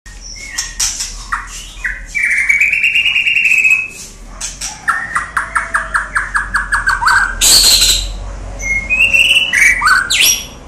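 White-rumped shama singing a varied song: clear sliding whistles, a fast run of repeated notes at about six a second in the middle, and short harsh notes mixed in.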